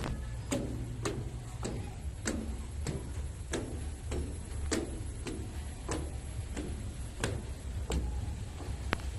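Footsteps climbing wooden stairs, a steady tread of a little under two steps a second, over a steady low rumble.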